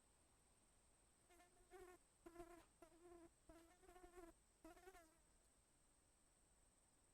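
Faint insect buzzing in half a dozen short bursts between about one and five seconds in, a low buzz whose pitch wavers. A thin, steady high-pitched hiss runs underneath.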